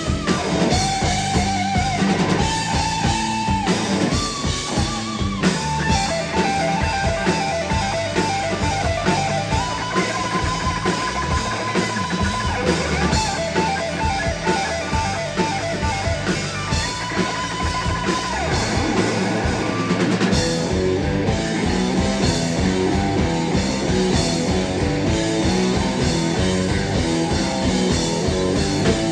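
Rock band playing live, with electric guitars and a drum kit keeping a steady beat under a held, sustained melody line.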